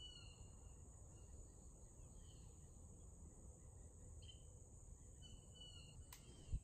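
Near silence: a faint steady high insect drone, with a few brief bird chirps. A sharp click about six seconds in, then a short thump just before the end.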